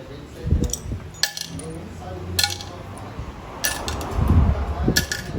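Metal tools or parts clinking against each other, about five sharp clinks with a short ring, amid handling and shuffling sounds.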